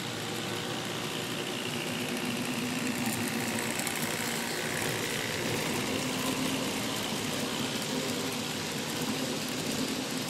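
A motor running steadily, a constant hum with a faint higher whine that dips and then rises again partway through.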